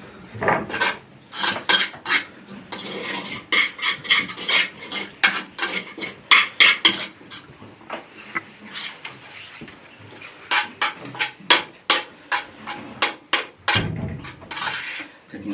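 A spoon scraping sticky yeast dough out of a glazed ceramic bowl: a quick, irregular run of rasping scrapes, about two or three a second, with a duller knock near the end.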